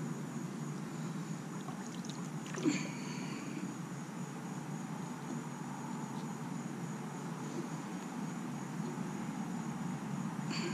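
Pool water lapping and sloshing as hands work under the surface at the pool wall, a steady low wash with two light clicks, one about three seconds in and one at the very end.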